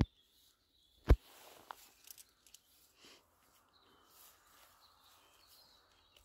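Faint rustling and crackling of dry fallen leaves as a dog noses through the leaf litter, with one sharp knock about a second in.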